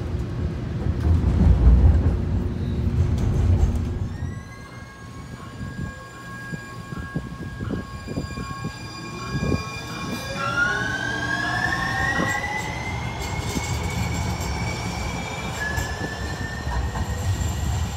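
For the first few seconds, the low rumble of a light-rail car running, heard from on board. Then a TRAX Siemens S70 light-rail train's electric traction motors whine, rising steadily in pitch as the train accelerates. A second, stronger rising whine begins about halfway through.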